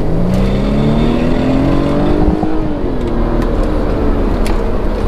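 2014 BMW 328i's turbocharged four-cylinder engine accelerating, heard from inside the cabin: its note rises for about two and a half seconds, then drops back and carries on. This is the hard acceleration under which the owner hears an intermittent rattle from under the car, which he thinks sounds like something loose.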